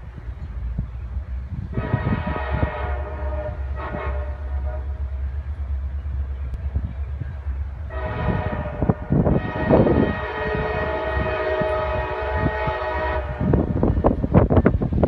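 CSX SD40-2 diesel locomotive's air horn sounding for a grade crossing: a blast of about a second, a brief toot, then a long blast of about five seconds. A low engine rumble runs underneath, and wind buffets the microphone near the end.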